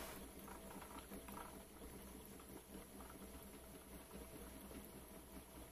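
Faint, quiet running of a small water-cooled Stirling engine driving a DC generator and water pump, a low hum with light pattering, as it coasts down on residual heat after its propane flame has been shut off.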